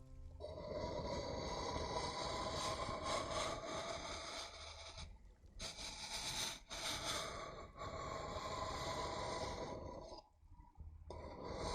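Close-microphone ASMR trigger sounds: continuous scraping and rubbing right on the microphone, with a few brief drop-outs, over a steady rain-sound background.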